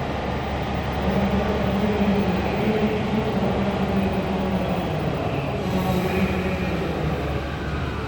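Electric train running: a steady rumble with a low, even hum.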